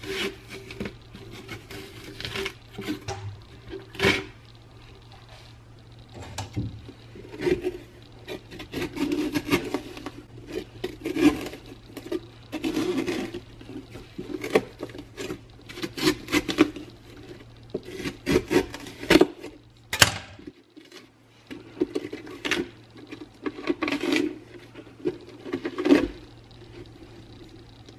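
Large kitchen knife carving and scraping the inside wall of a hollowed pumpkin to thin the rind: repeated uneven scraping strokes with sharp knocks of the blade against the shell.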